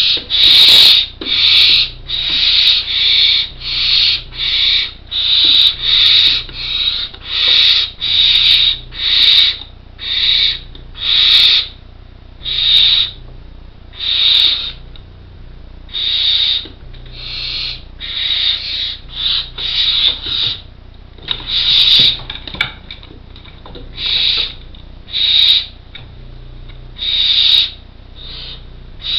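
Barn owl chicks snoring: the rasping, hissing begging calls of well-grown nestlings, each call about half a second long. The calls come in quick succession at first and thin out, with longer gaps, after about the halfway point.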